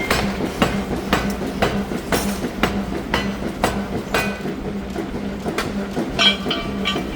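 Repeated hammer blows on red-hot steel during forging, about two strikes a second, each with a short metallic ring, over a steady machine hum. About six seconds in comes a longer ringing clang.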